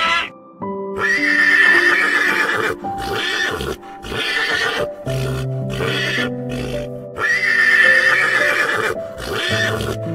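Horse whinnying in a series of calls, the two longest starting about a second and about seven seconds in, over background music with held notes.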